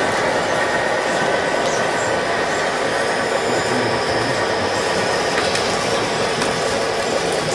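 Steady whirring of radio-controlled model trucks' electric motors and gearboxes running, with a few light clicks.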